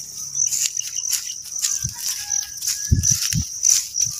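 Insects, crickets or similar, chirping steadily in a high, pulsing trill. A few dull low thumps come about three seconds in.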